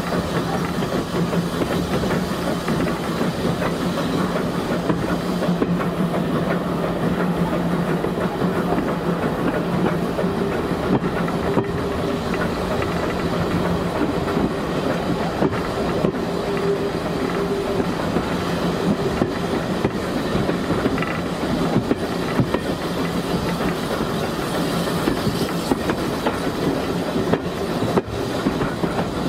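A passenger coach rolling along the track, heard from an open window: steady running noise of wheels on rail, with clickety-clack over the rail joints and a low steady hum that is stronger in the first half.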